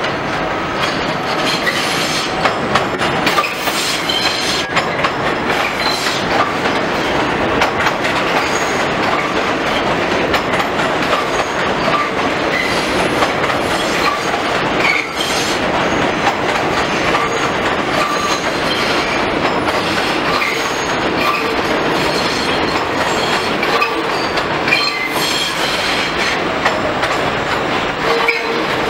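New York City Subway F train running over the track switches on an elevated line: steady wheel and car rumble with clickety-clack over the rail joints and short wheel squeals.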